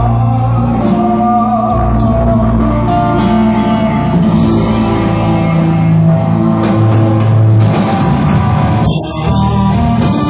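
Rock band playing live: electric guitar and drum kit, with singing.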